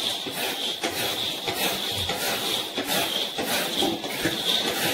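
Small peanuts frying in a pan over a low flame and being stirred: a busy run of short scrapes and rattles over a steady high hiss.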